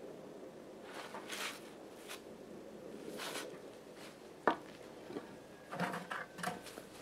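Boots crunching in snow, then a single sharp knock as a wooden canoe paddle is laid across a wooden chopping block, followed by a short run of clanks as an axe is pulled out of a metal bucket.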